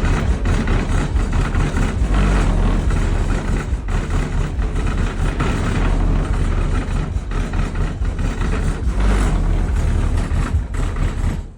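Very loud bass from large subwoofers: a heavy, steady low rumble with harsh, distorted noise over it. It cuts off abruptly at the end.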